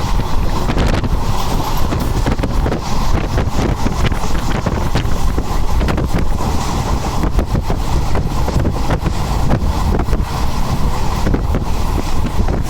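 Moving train heard from on board, a loud steady rumble with many short rattles and knocks, with wind buffeting the microphone.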